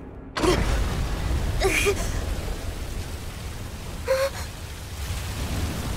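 A fire flares up suddenly about half a second in and then burns with a steady rushing noise and a deep rumble. A voice gives a few short gasps over it.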